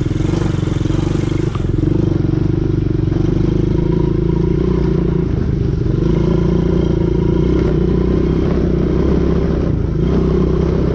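ATV (quad bike) engine running steadily while riding, its pitch shifting slightly with the throttle.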